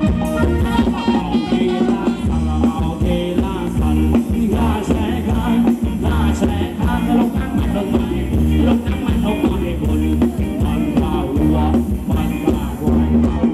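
Live band playing Thai ramwong dance music with a steady beat and heavy bass, with a singing voice over it.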